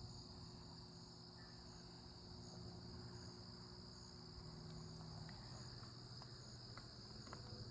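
Faint, steady high-pitched drone of insects, likely crickets, chirring outdoors.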